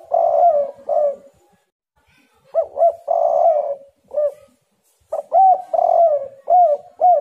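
Spotted dove (tekukur) cooing in three phrases about a second apart, each a run of several short coos with a longer rolling coo in the middle.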